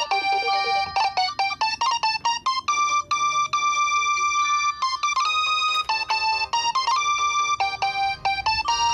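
Mobile phone ringtone playing a synthesized melody: quick runs of short notes, with one long held note in the middle.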